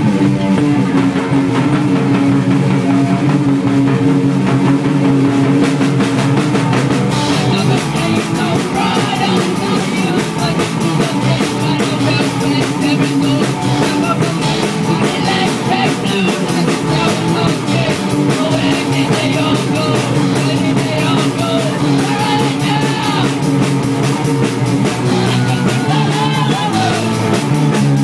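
A rock band playing live in rehearsal: distorted electric guitars over a drum kit. The drums and cymbals come in harder about seven seconds in.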